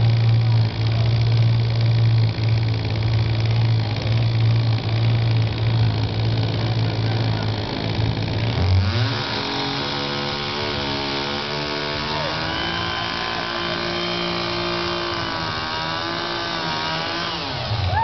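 Two-stroke chainsaw idling with a steady low drone, then revved up about halfway in and held at high speed, its pitch wavering up and down.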